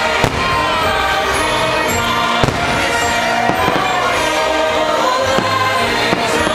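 Fireworks show: the show's music, with singing voices, plays loud and steady through loudspeakers. Several sharp firework bangs cut across it, the strongest about two and a half seconds in.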